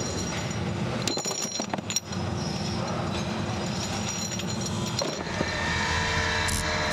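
Industrial tumbling drum machine running with a steady rumble while a load of metal brake shoes is tipped into it, the parts clinking sharply against each other about a second in. Near the end the machine gives way to a saw cutting brake lining material.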